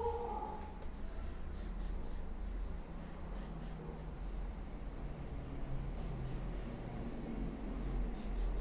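Felt-tip sketch pen tapping and scratching on paper as it dabs small dots along a drawn border, over a steady low hum.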